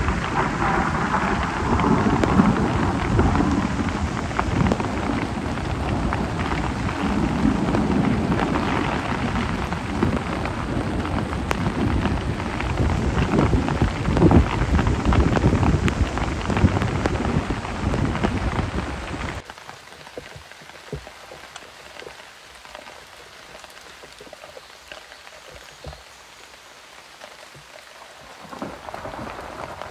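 Heavy rain pattering on a clear plastic tarp and the surrounding forest floor, loud and dense. About two-thirds of the way in it drops suddenly to softer rain with scattered separate drips, then grows louder again near the end.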